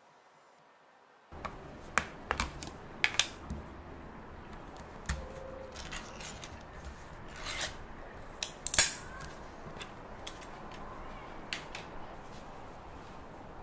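A Spam can being opened by hand: the snap-on plastic cap comes off with a few clicks, then the ring-pull metal lid is lifted and peeled back, with sharp clicks and scrapes, the loudest about nine seconds in.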